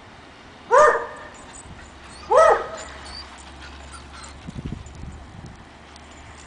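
A dog barking twice, two short, loud barks about a second and a half apart.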